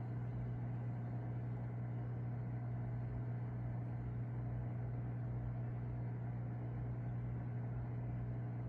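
Steady low mechanical hum with an even, unchanging drone.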